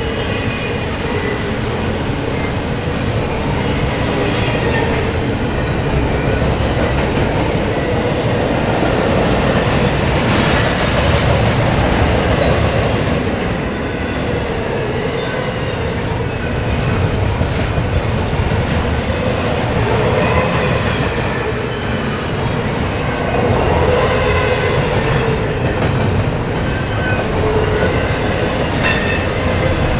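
Double-stack intermodal container cars rolling past close by: a loud, steady rumble of steel wheels on rail with clickety-clack over the rail joints, and thin squealing tones from the wheels coming and going.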